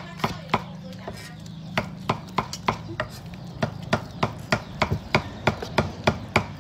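Steady rhythmic knocking, about three sharp knocks a second, in the even beat of chopping.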